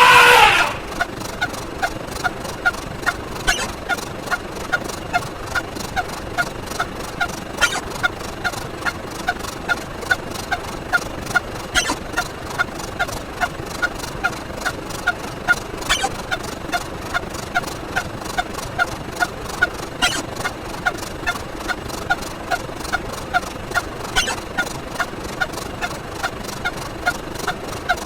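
A short pitched sound effect repeats rapidly, about two and a half times a second, one for each step of the count. Roughly every four seconds a sharper, click-like effect is heard. A louder sweeping effect sounds right at the start.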